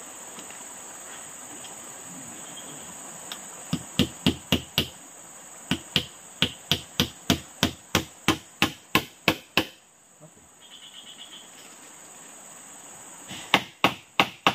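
Runs of sharp strikes, about three a second: five about four seconds in, a longer run of a dozen right after, and four more near the end. Under them is a steady high-pitched insect chorus.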